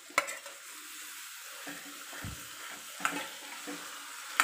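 Pressure-cooked tripe tipped into a kadhai of hot fried masala, setting off a steady sizzle, then stirred with a metal spatula. There are three sharp clicks of metal against the pan: one just after the start, one about three seconds in, and one at the end.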